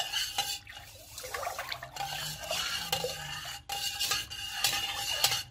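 Metal spoon stirring milk in a stainless steel pot, swishing through the liquid with light clinks and scrapes against the pot's sides, as rennet is mixed into the warm milk for cheesemaking.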